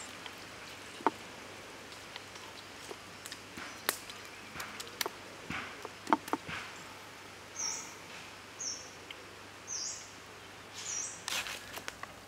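Hands rubbing marinade into a raw chicken on a wooden board: soft wet handling noises with occasional sharp clicks. From about halfway through, a bird chirps in the background about once a second, and near the end there is a quick run of scraping.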